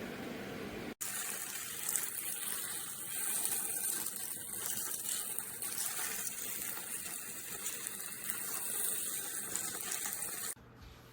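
Water running steadily from a tap, stopping abruptly near the end.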